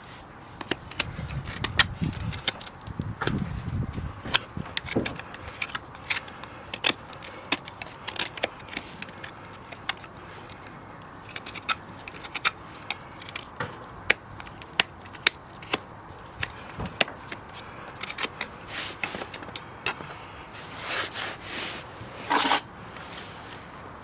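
Hoof trimming: irregular sharp clicks and scrapes of farrier's tools cutting and paring hoof horn, with a louder scrape near the end.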